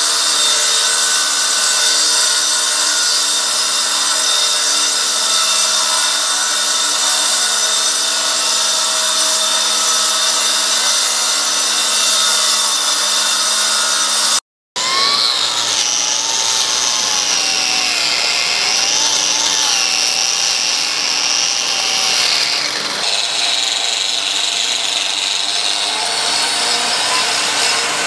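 Metabo angle grinder in a crack-chaser cart running steadily as it cuts concrete, with the Pullman Ermator S26 HEPA dust extractor drawing off the dust. After a short break about halfway, a grinder cuts again, its pitch wavering as the load changes.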